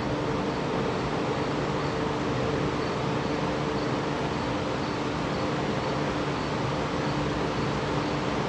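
Steady mechanical hum with a few constant low tones, like a running fan or machine in the background.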